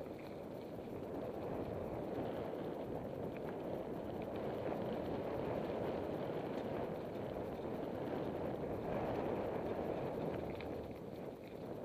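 Mountain bike rolling fast down a dirt singletrack: a steady rush of tyre noise on the dirt and wind on the microphone, with a few faint clicks.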